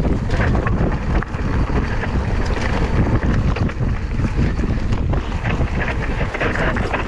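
Wind buffeting an action camera's microphone while a Scott Spark RC mountain bike rides over a rough trail, with steady tyre rumble and frequent clicks and rattles from the bike.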